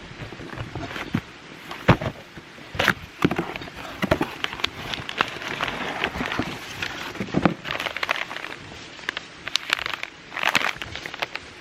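Irregular crackling and snapping of dry wood and leaves, with a few louder sharp cracks scattered through.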